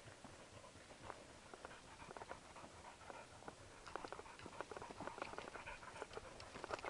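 Footsteps scuffing and crunching on a dry dirt trail strewn with leaf litter, faint and irregular, growing busier about halfway through.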